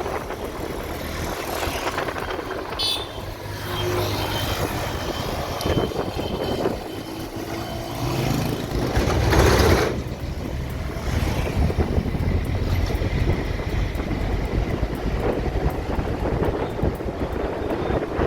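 Road traffic: motor vehicles, trucks among them, running past, with one louder pass about nine to ten seconds in.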